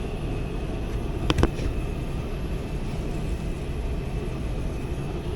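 Residential air handler blower running steadily, with the rush of air moving through the system and a faint steady high tone. Two quick knocks come about a second in.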